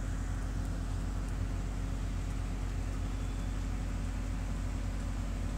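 A steady low machine hum with a fluttering rumble underneath, like an engine running, unchanged throughout.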